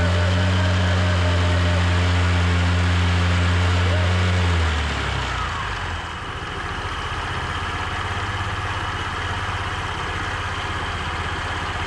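Mondial Loyal 50i scooter engine running with its belt-drive cover off. It is held at raised revs with the variator and rear clutch spinning, then drops back to idle about five seconds in. Under it is a growl, which the mechanic takes for a bearing inside the engine rather than the variator.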